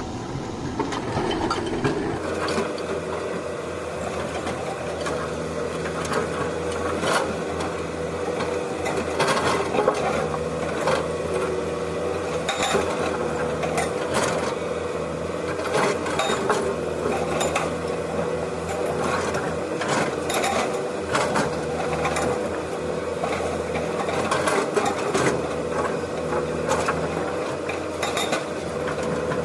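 A small electric motor whines steadily in a toy remote-control excavator, with the gear drive rattling and frequent sharp plastic clicks and knocks as the machine works.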